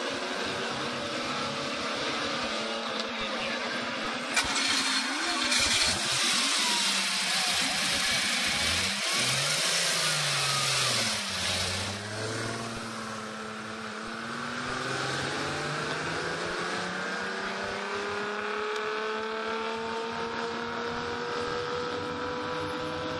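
Ferrari 250 GTO's V12 engine running on a race track, its pitch rising and falling with revs. It is loudest, with a broad rush, between about four and twelve seconds in as the car passes close. After that the engine note rises slowly and steadily as it accelerates away.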